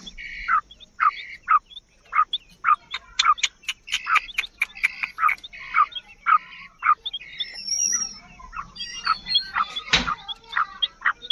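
Black francolin calling: a rapid run of short, harsh, downward-sliding notes, about two a second, with one sharp knock near the end.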